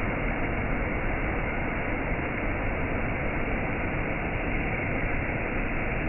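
Whitewater cascade rushing over rocks: a steady, dull rush of water that does not change.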